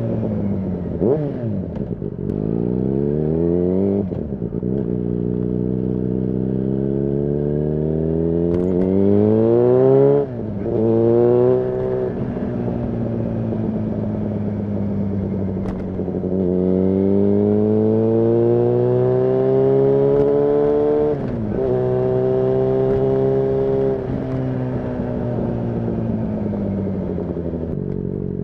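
Yamaha FZ6's 600 cc inline-four motorcycle engine pulling through the gears while riding: the engine note climbs, drops sharply at each of several upshifts, holds a steady cruise, and falls away near the end as the throttle is eased off.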